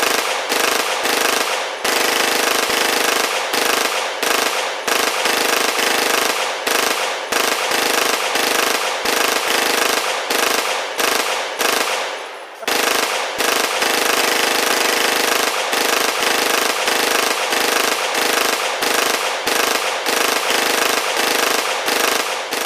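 Continuous rapid rattle like automatic gunfire, presented as the sound of a MAC-11, broken by many brief gaps and one longer pause about twelve and a half seconds in.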